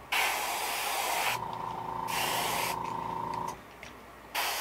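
Airbrush spraying paint in short hissing bursts, two in quick succession and a third starting near the end, as the last of the paint in its cup is sprayed out. A steady hum runs underneath between bursts.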